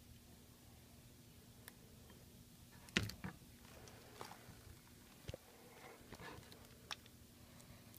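Faint handling noises from repair work on an iPad 2 frame while double-sided tape is laid on: scattered light clicks and knocks, the loudest about three seconds in, with a little rustling.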